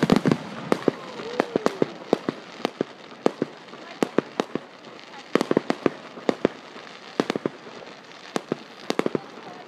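Aerial fireworks bursting: an irregular run of sharp bangs and crackling pops, several a second, bunched densely at the start, about five and a half seconds in, and near the end.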